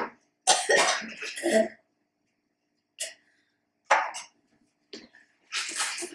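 A girl coughing and gagging after swallowing a foul smoothie made with hummus and canned chicken. A harsh fit of coughs comes just after the start, then single coughs about a second apart, and another fit near the end.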